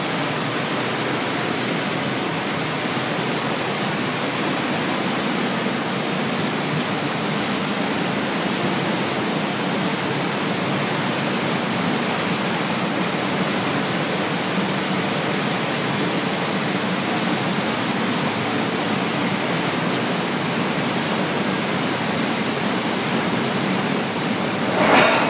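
Steady, even roar of an Ashross RUMig rail car unloading system at work, unloading coal cars onto its discharge conveyor. A short, louder burst of sound comes right at the end.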